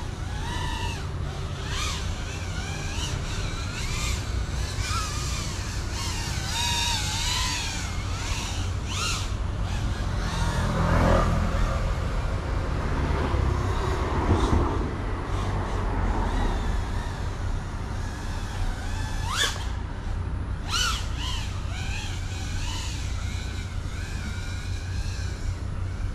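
FPV racing drone's motors buzzing in flight, the pitch wavering up and down with the throttle and swelling louder in the middle, over a steady low rumble.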